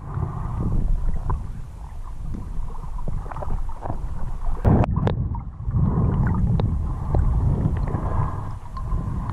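River water heard underwater through a GoPro housing: a constant low, muffled rumble of the current, with scattered small clicks and ticks.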